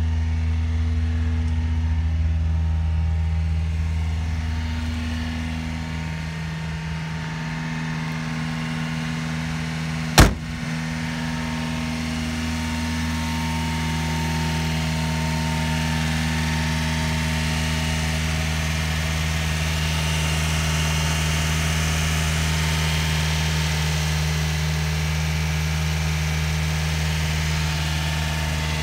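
Subaru Sambar kei truck engine idling steadily, with a single sharp knock about ten seconds in.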